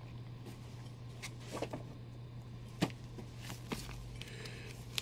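Faint steady electrical hum with a few light taps and rustles, the sharpest about halfway through: comic books and shipping boxes being handled.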